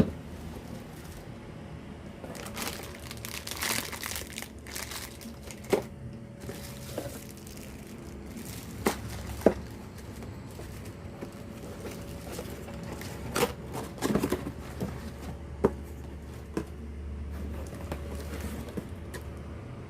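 Packaging crinkling and rustling with irregular clicks and knocks as a boxed INGCO cordless vacuum cleaner is unpacked and handled.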